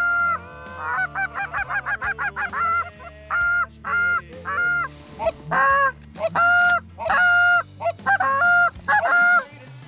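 Canada goose honks and clucks: a fast run of short clucks from about one to three seconds in, then a string of longer, loud honks.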